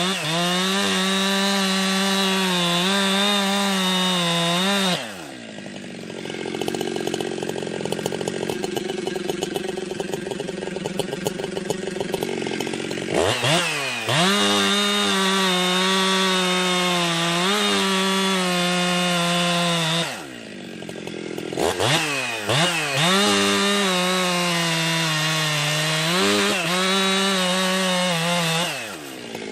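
Ported two-stroke Jonsered 2071/2072 chainsaw running at full throttle in wood, its pitch sagging a little under load. It drops back to idle about five seconds in, revs up again at around fourteen seconds, falls off at about twenty seconds with a couple of quick blips, then runs flat out again until it drops near the end.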